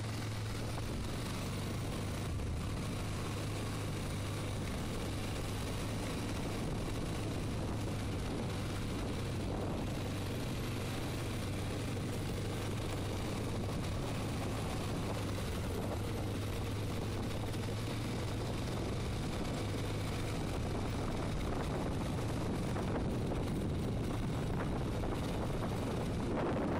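Quad bike engine running steadily on the move over a dirt track: a constant low hum under an even rush of noise, with no change in pace.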